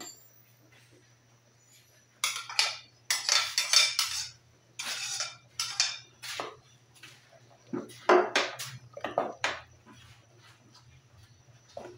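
Starting about two seconds in, a run of scrapes and clinks of a metal spoon against a bowl and a stainless steel cooking pot, as mashed guava is scraped into the pork broth and stirred in.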